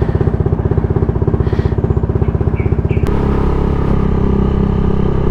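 Honda Vario 160 scooter's single-cylinder engine idling with a rapid, even pulsing. About three seconds in, it gives way to a steady engine note as the scooter rides along at an even speed.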